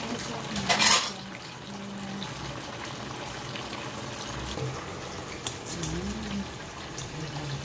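Pieces of tofu deep-frying in a wok of hot oil, with a steady sizzling bubble. A short, loud crackle bursts out about a second in.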